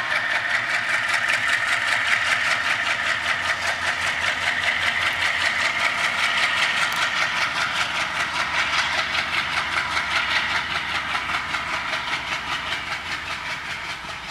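Twin ALCO WDM-3A diesel locomotives (ALCO 251 engines) chugging under load as they haul a passenger train away, a fast, even throb over steady engine noise that fades near the end as the train draws off.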